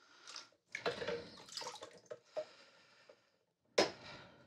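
Hand washing of small metal goblets in a plastic basin of water in a steel sink: irregular splashing and sloshing, with a few sharp clinks as the goblets are set down in a plastic dish rack, the clearest near the end.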